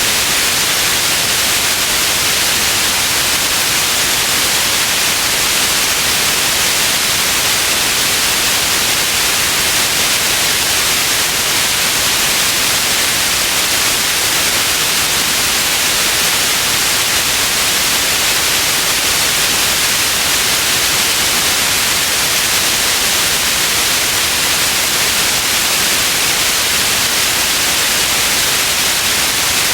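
Steady synthetic white noise: an even, unchanging hiss, strongest in the high frequencies.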